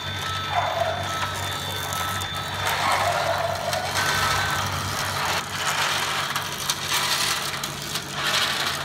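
Toy train on a plastic track set, its small motor giving a steady hum with repeated bursts of plastic rattling.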